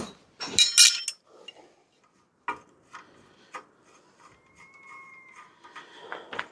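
Bicycle headset being unscrewed with a headset spanner: a short rasping metal scrape with clinks about half a second in, then a few light clicks and a faint thin squeak as the parts turn.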